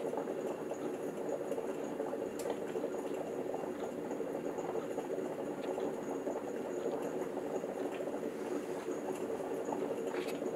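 Farberware 2-4 cup stainless steel electric percolator percolating: a steady bubbling of water boiling up through the percolator tube.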